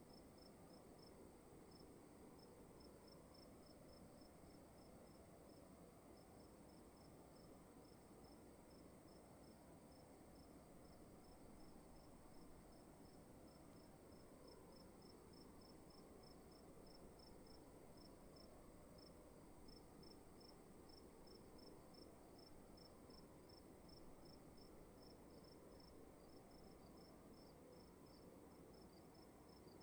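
Faint crickets chirping in fast, even pulses that run on without a break, over a steady high whine and a low, even hiss of room noise.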